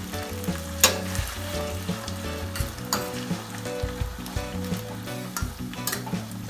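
Saltfish, onion and sweet pepper sizzling steadily in hot oil in an enamel frying pan, with three sharp clicks of a utensil against the pan.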